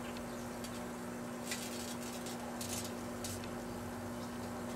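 Microwave oven running with a steady hum while the aerosol can of silly string inside arcs and burns, giving three short crackles about a second and a half, two and three-quarter, and three and a quarter seconds in.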